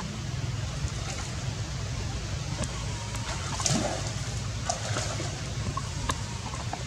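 Water splashing and sloshing as young monkeys swim and play in a shallow pool, with a few short sharp splashes, the loudest a little under four seconds in, over a steady background noise.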